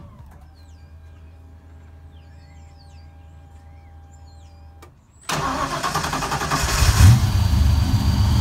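Fuel-injected 302 (5.0 L) small-block Ford V8 starting about five seconds in, rising briefly near seven seconds, then running on at idle; the engine is cold and still being tuned, and its owner expects it may stall. Before it starts there is only a faint steady whine.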